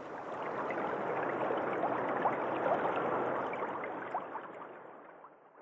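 A rushing, water-like noise that swells and then fades out over about five seconds, with a few faint short chirps in it.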